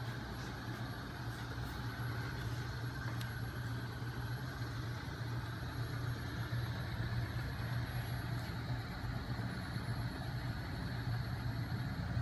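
Small 12 V electric motor driving a homemade magnet-coupled flywheel rig, running steadily with a low hum and a few faint ticks.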